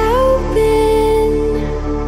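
Background music: a slow piece with a steady low drone beneath and a melody that slides up into a long held note about half a second in.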